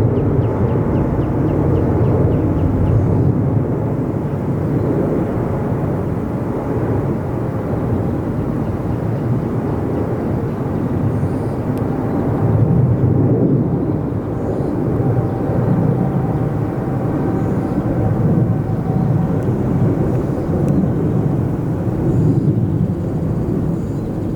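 Jet airliner engines in a steady, loud, deep rumble, with a faint high whine running through it.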